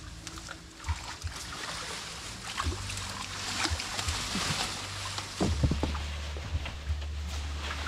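Shallow muddy creek water sloshing and splashing as people wade and feel under the bank by hand for fish, with scattered knocks and a low rumble that gets louder about two-thirds of the way in.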